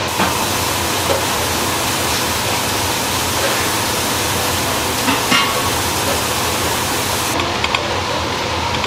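A large kitchen knife cutting through grilled eel and knocking a few times on a wooden cutting board, over a steady rushing kitchen noise.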